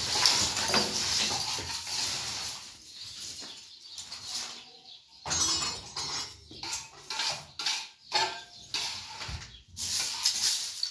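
Steel scraper and plastering trowel scraping across a floor strewn with broken old plaster, with chunks of plaster clattering, in irregular strokes and a short lull about halfway through.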